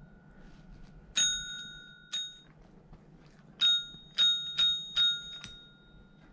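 Pet training bell (a tabletop call bell) struck by a miniature schnauzer's paw: two dings about a second apart, then a quick run of four, each ringing on briefly.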